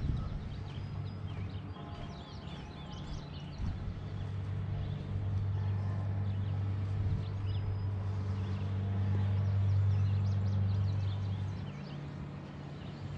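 A steady low motor-like hum that swells through the middle and drops back near the end, with small birds chirping over it.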